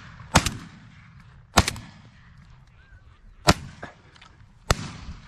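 Four shotgun shots fired at ducks overhead, each a sharp report with a short ringing tail, coming irregularly about one to two seconds apart.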